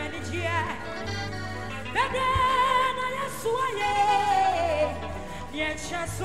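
Live gospel worship music: a solo voice sings long held, wavering notes with slides between pitches into a microphone, over keyboard accompaniment and a steady low bass.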